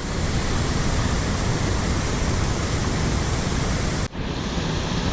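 Steady rushing of mountain-stream water, a constant hiss and roar, briefly cut off about four seconds in before resuming.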